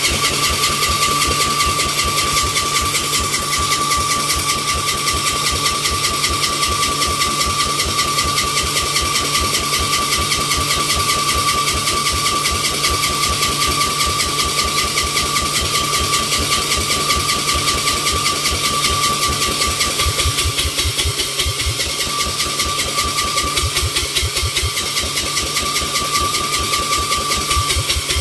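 Lawn tractor engine cranking on its electric starter without firing: an even beat of compression strokes, about five a second, under a steady starter whine. The owner puts the failure to start down to the kill tether safety not being set.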